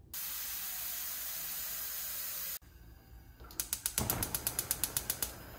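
Water running steadily into a pot. After a cut, a gas stove's igniter clicks rapidly, about ten clicks a second for under two seconds, and the burner then catches with a soft steady hiss.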